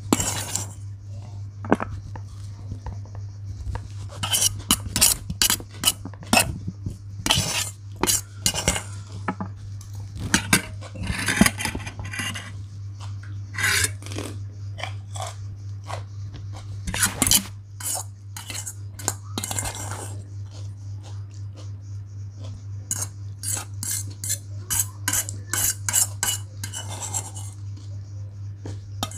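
A metal fork clinking and scraping against a stainless steel bowl of fried noodles, in irregular bursts, over a steady low hum.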